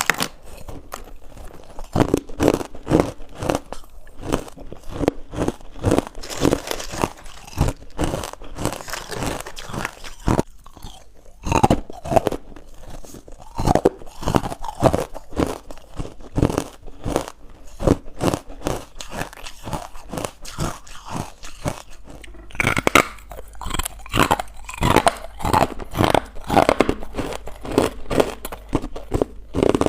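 Close-up chewing of crunchy, powdery carbonated ice bites: rapid crunching and cracking of ice between the teeth, with several harder crunches about 11 to 14 seconds in and a denser stretch of crunching from about 23 seconds on.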